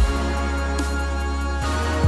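Background music with steady sustained tones and deep bass hits that drop in pitch, one at the start and one near the end.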